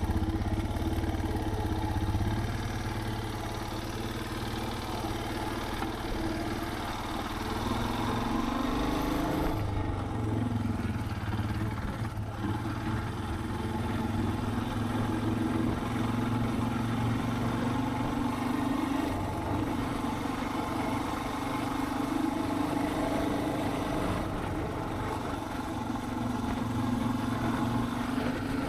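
Suzuki DR650's single-cylinder engine running as the motorcycle is ridden, its pitch rising and falling with the throttle and gear changes, most clearly about a third of the way in.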